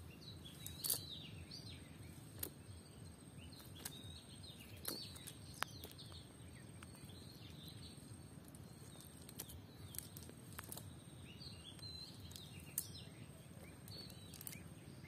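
Small birds chirping and calling over steady low outdoor background noise, with a few sharp clicks scattered through.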